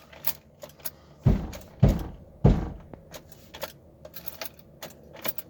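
Three heavy thumps about half a second apart, blows struck against the truck, with light clicks and taps around them.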